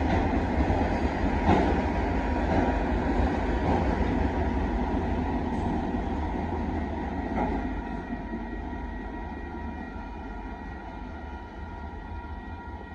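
Freight train's autorack cars rolling past, a steady rumble of steel wheels on rail with a couple of sharp clanks. It fades over the second half as the end of the train goes by.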